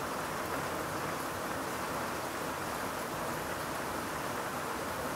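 Steady rain of a passing shower falling, an even hiss with no single drops or other events standing out.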